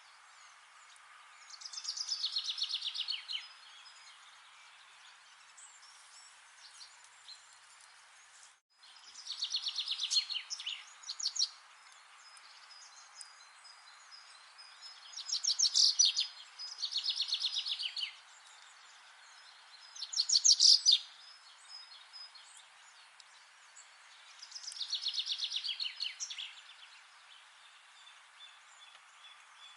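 A songbird singing short, rapid trilled phrases that fall in pitch, about six of them a few seconds apart, over a steady faint background hiss.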